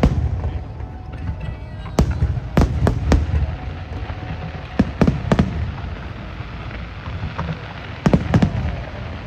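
Aerial fireworks bursting: sharp bangs in irregular clusters, several in quick succession, over a continuous low rumble of the display.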